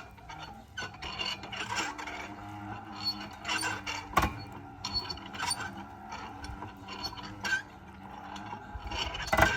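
Irregular metal clicks, knocks and scraping from lifting gear working on a heavy metal sculpture, with a sharper knock about four seconds in and another near the end.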